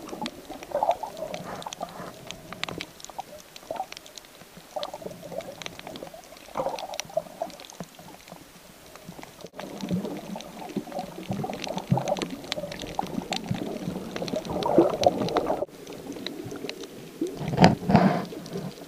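Muffled underwater sloshing and gurgling of water moving around a handheld action camera, with many faint scattered clicks and louder surges near the end as the camera nears the surface.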